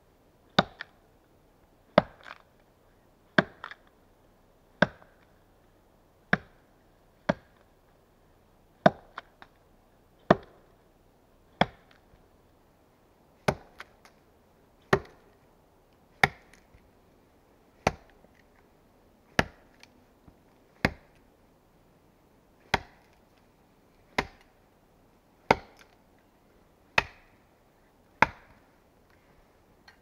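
Custom-made axe chopping into a log: about twenty sharp blows at a steady pace of roughly one every second and a half, some followed by a lighter second knock.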